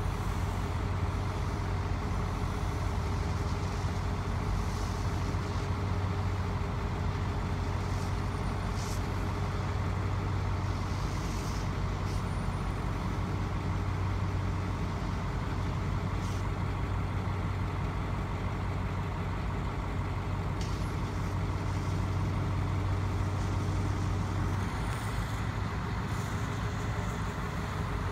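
GMC bucket truck's engine running steadily with a low hum, driving the hydraulics while the boom is raised and swung, with a few faint short hisses. The hum shifts slightly about 24 seconds in.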